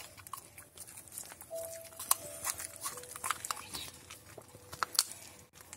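Dog chewing and cracking peanuts in their shells, an irregular run of sharp crunches and smacks, the loudest about two seconds in and again near the end.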